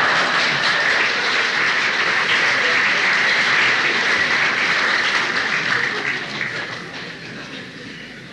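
Concert audience applauding after a punchline: a dense, steady clapping that dies away over the last two or three seconds.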